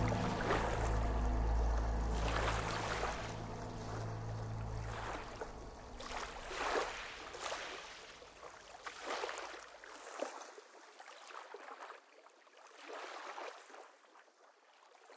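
Water washing and lapping in swells every second or two, slowly fading away. A low held music tone underneath dies out over the first few seconds.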